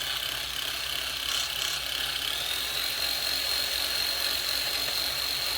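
Traxxas TRX-4 RC crawler's electric motor and pinion-and-spur gears running: a steady high gear whine that rises slightly in pitch about two seconds in. This is the pinion noise being checked while the gear mesh is set with shims in the motor plate.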